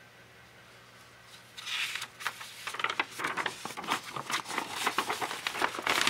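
Sketchbook paper pages rustling as a hand lifts and turns them, starting about a second and a half in as a rapid run of sharp crackles.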